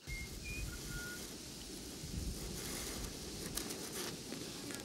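Fine steel wool hissing and crackling as it ignites from a short across car-battery leads, with a few sharp crackles near the end, over a steady low rumble. Birds chirp briefly in the background about a second in.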